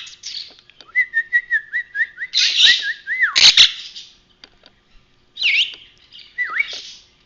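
Pet parakeets chirping and whistling: a wavering, warbling whistle held for about two seconds, then harsh chirps with a sharp click in the middle, and two short up-and-down whistles near the end.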